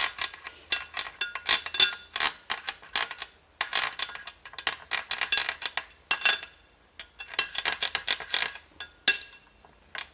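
A spoon stirring honey into onion juice and grated ginger in a bowl, clinking rapidly and ringing against the sides, in several runs with short pauses between them.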